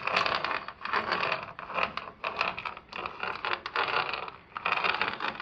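Irregular crinkling and scraping rustles, coming in clumps of a second or so.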